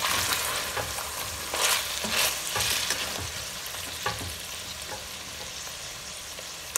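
Wooden spoon stirring and scraping cubed beef around a steel pot while the meat sizzles in rendered beef suet, the kavurma at the end of its cooking. Several louder scrapes come in the first three seconds, a few light knocks of the spoon about four seconds in.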